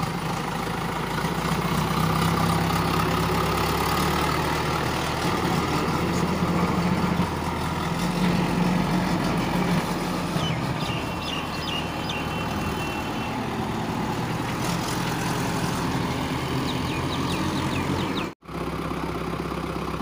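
JCB 3DX backhoe loader's four-cylinder diesel engine running steadily as the machine drives and works, with a steady low hum. The sound drops out for an instant near the end.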